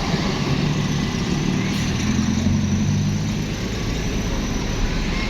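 Diesel engine of a large bus running, its low drone growing louder about two seconds in and easing off again near four seconds.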